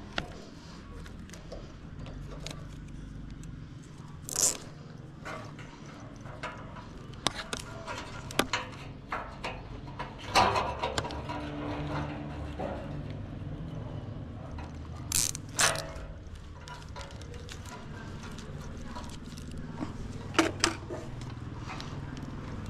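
Plastic cable ties ratcheting as they are zipped tight around a bundle of fiber-optic drop cables, among scattered clicks and knocks of the cables being handled. The sharp sounds are spread out, with two quick pairs in the second half.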